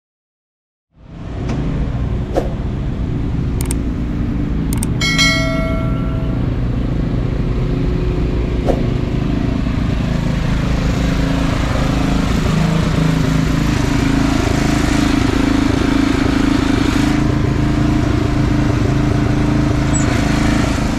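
Engines running with a steady low rumble, starting about a second in. A short ringing tone sounds once about five seconds in, with a few sharp clicks around it.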